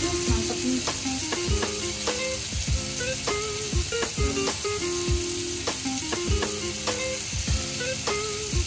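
Squid sizzling on a buttered pan as it grills, with background music with a steady beat.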